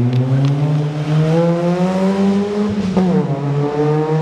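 Opel Kadett rally car's engine pulling hard under full acceleration, its pitch climbing. It shifts up about three seconds in, the pitch drops sharply, and then it climbs again.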